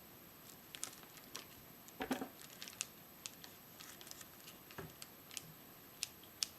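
Hands opening and handling a small mystery-pack bag: scattered light crinkles, taps and clicks of packaging, with a louder rustle about two seconds in.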